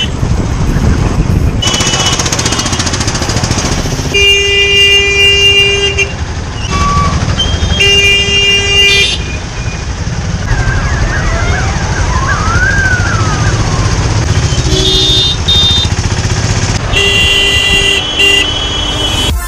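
Steady rumble of wind and a motorcycle engine while riding through traffic, with vehicle horns honking several times. The longer blasts last one to two seconds, about four and eight seconds in and again near the end. Around the middle a thin whistling tone rises and falls.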